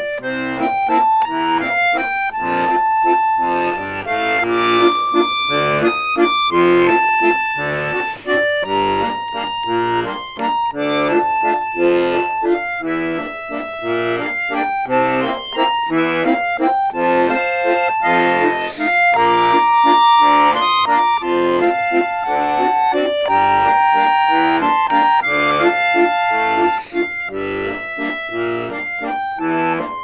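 Bayan (Russian chromatic button accordion) played continuously: a slow, searching improvised melody over chords and low bass notes, being worked out phrase by phrase as a new piece is composed.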